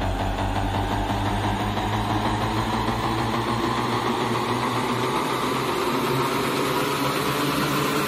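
Electronic dance music from a DJ mix in a breakdown. The kick drum beat drops out about a second in, leaving a sustained droning synth texture with a slowly rising noise sweep.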